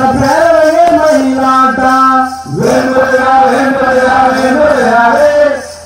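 A man singing a Tamil folk song for a group dance, in long held, gliding phrases with a short break about two and a half seconds in and another near the end.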